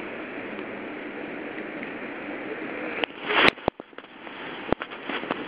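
Steady hiss of background noise, broken a little over three seconds in by a loud knock and rustle with sharp clicks, and one more click near the end: handling noise from a handheld camera being bumped and jostled.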